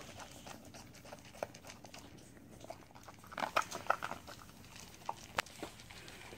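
Jindo dog eating dry kibble from a bowl: scattered crunches and clicks, with a run of louder crunches about three and a half seconds in.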